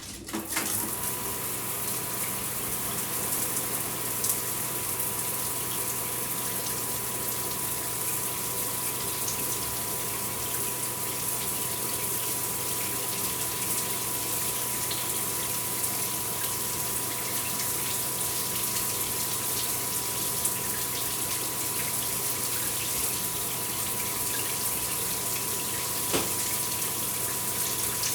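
Electric shower running: a steady hiss of water spray, joined about a second in by the unit's steady low hum and a thin, high, steady whine.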